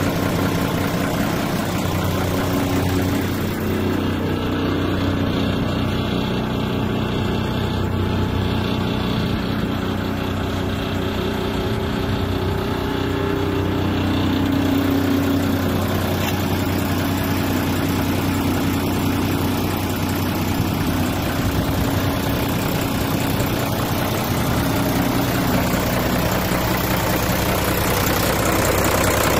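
Mitsubishi Fuso Fighter dump truck's 6D17 straight-six diesel engine idling steadily.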